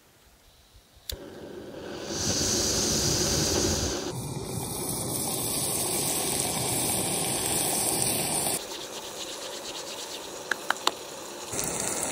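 Butter and chopped onions sizzling in a small camp pot on a canister backpacking stove, under the hiss of the burner. A sharp click comes about a second in, and the sizzle changes abruptly a few times.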